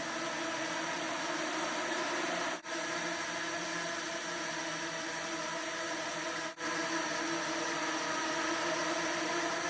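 A swarm of nano quadrotors flying together: the steady, many-toned buzz of their small motors and propellers, briefly dipping twice.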